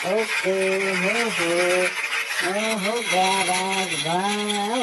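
A wordless melody: a single pitched line moves between held notes about half a second long, sliding up and down between them, over a steady high hiss.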